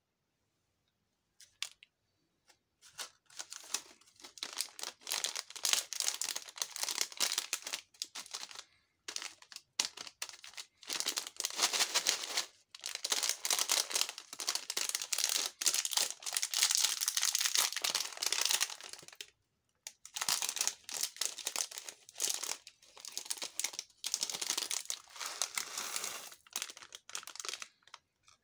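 Plastic candy wrapper of a small chewy-candy pouch crinkling as it is handled and torn open, in long crackling stretches with a few short pauses.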